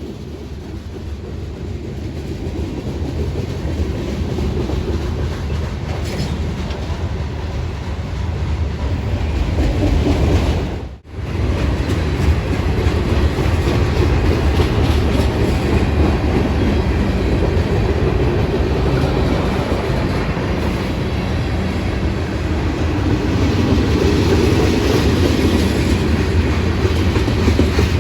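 Freight train rolling past, its steel wheels clacking over the rail joints. It grows louder over the first several seconds, breaks off for an instant about eleven seconds in, then keeps rolling at a steady level.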